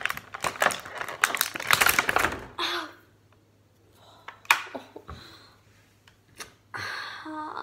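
Stiff plastic blister packaging crackling and crinkling as it is pried apart, dense for about two and a half seconds, then a few single clicks. Near the end comes a short pained vocal sound from a finger hurt on the packaging.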